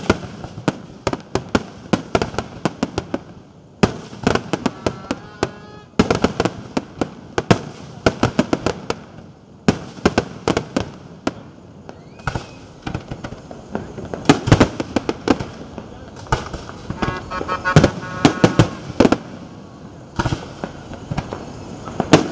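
Aerial fireworks display: a dense, irregular run of shell bursts and crackling bangs, often several a second, with a few brief lulls.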